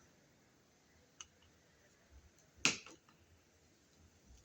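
Two sharp clicks from handling a wall receptacle and its wiring in the electrical box, a faint one about a second in and a louder one about two and a half seconds in, with a few very faint ticks between.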